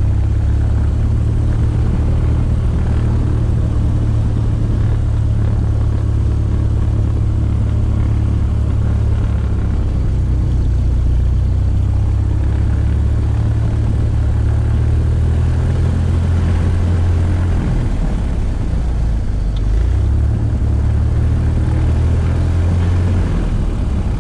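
Piston engine and propeller of a single-engine light aircraft running at low taxi power, heard from inside the cockpit as a loud, steady drone. Its low note dips and shifts a few times in the last third.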